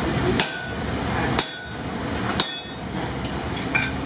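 Hammer blows on a steel punch driven into hot steel to punch the eye of an axe: three heavy strikes about a second apart, each with a short metallic ring, then a few lighter taps near the end.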